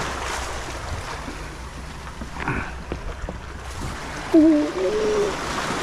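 Sea water washing and sloshing among concrete tetrapods, with a low steady hum underneath. About four seconds in, a short wavering voice rises over it.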